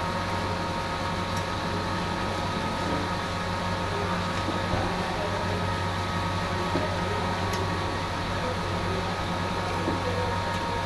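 Steady machine hum with several held tones, over water running from a tap into a plastic bucket.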